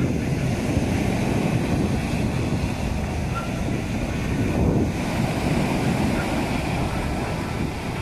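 Rough sea surf: waves breaking and washing up the shore in a steady rush, with wind buffeting the microphone.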